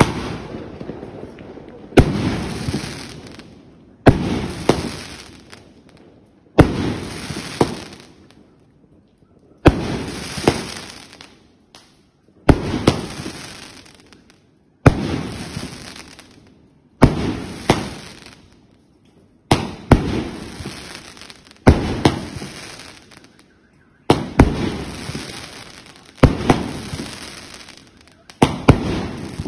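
A 2-inch 49-shot fireworks cake firing one shell about every two to three seconds. Each shot gives two sharp bangs about half a second apart, the launch and then the burst, followed by a fading crackle and hiss as the trails burn out.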